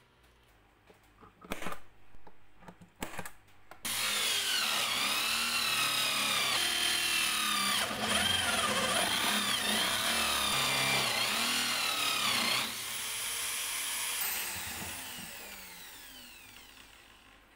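Electric drill in a drill stand boring a flat-bottomed hole into a grey-faced board with a Forstner-type bit. A few knocks come first, then the motor starts about four seconds in and runs under load with its pitch wavering. It eases off at about thirteen seconds and winds down, falling in pitch, near the end.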